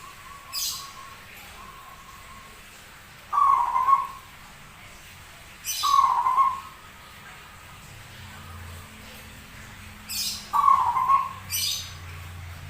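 Zebra dove (perkutut) cooing: three loud coo phrases a few seconds apart, with short high chirps alongside, a call its keeper counts as unusual-sounding.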